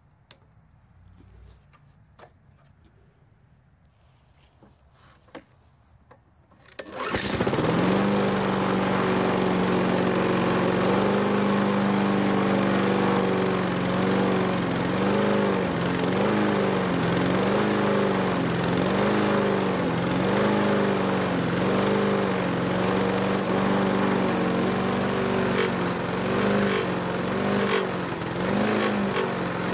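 Near silence with a few faint clicks, then about seven seconds in a Honda walk-behind mower engine starts and keeps running. It is steady at first, then surges, its pitch rising and falling about once a second, because fuel has not yet worked its way through the carburettor.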